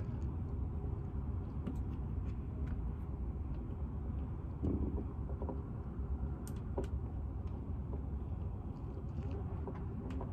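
Steady low rumble with scattered light clicks and taps.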